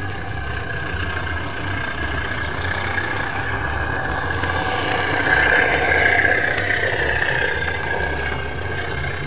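Miniature railway locomotive running past on its track, a steady mechanical hum that grows loudest a little past halfway as it passes close, then eases.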